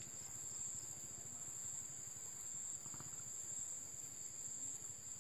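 Steady high-pitched chorus of insects, a cricket-like trill, with a low rumble underneath.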